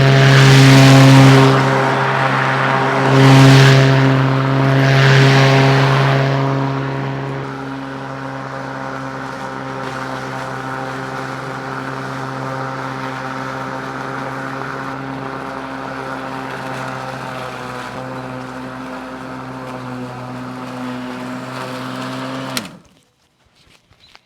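Black & Decker MM875 electric mulching mower running while cutting grass, a steady motor-and-blade hum. It surges louder with a hiss several times in the first six seconds, then runs evenly until it cuts off abruptly near the end.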